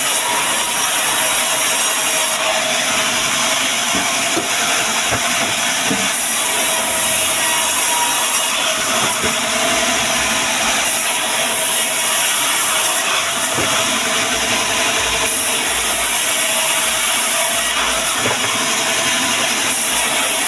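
Band sawmill running and cutting through timber: a loud, steady sawing noise with a faint steady whine and a few light knocks.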